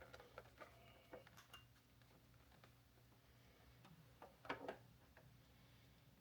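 Near silence with a faint steady hum, broken by scattered light clicks and taps and a slightly louder pair of knocks about four and a half seconds in.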